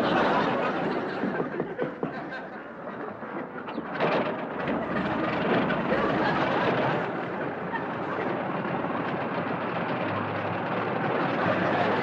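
A small single-engine propeller plane's engine running loudly and steadily as the plane gets under way.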